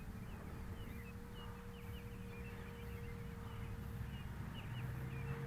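Faint whine of a Flyzone Cessna Corvalis RC plane's electric motor and propeller at full throttle in a dive pass. A lower tone comes in and grows louder near the end as the plane comes closer.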